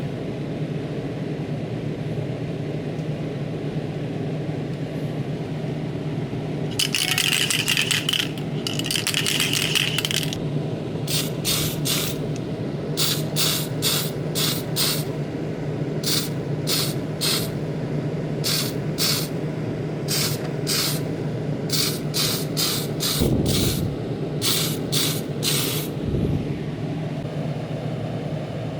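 Gloss clear coat being sprayed onto a clear plastic model part: two longer hisses of spray about seven and nine seconds in, then some twenty short spray bursts. Under it a steady motor hum runs throughout.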